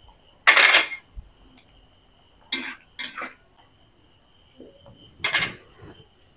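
A cooking utensil scraping and stirring in a pan of potato curry as the last chillies and coriander are mixed in: four short scrapes.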